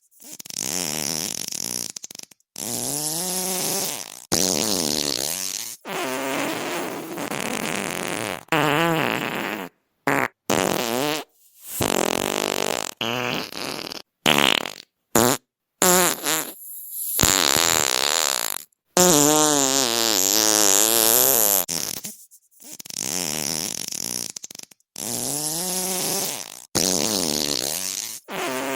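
A rapid series of fart sounds played back to back, about fifteen of them, each from under a second to about three seconds long with a wavering, fluttering pitch, divided by abrupt cuts.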